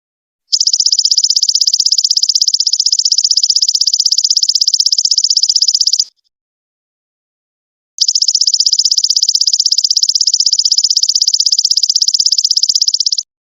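Golden locust (belalang emas) stridulating: a high, rapidly pulsing buzzy trill in two long bouts of about five seconds each, separated by a two-second silence.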